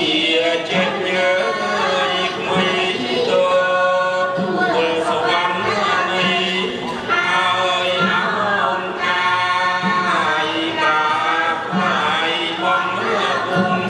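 A chorus of singers giving the sung narration of Khmer classical dance-drama (lakhon kbach boran), in long held notes that waver up and down with short breaks between phrases.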